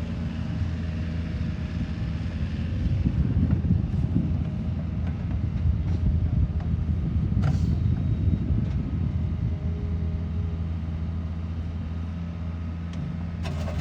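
Wacker Neuson 50Z3 midi excavator's diesel engine running steadily. It grows louder for several seconds in the middle, with a single metallic knock about seven and a half seconds in.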